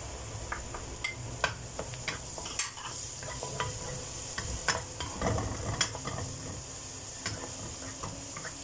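Chopped onion and garlic sizzling in oil in a stone-coated nonstick frying pan, stirred with a wooden spatula that scrapes and taps against the pan now and then.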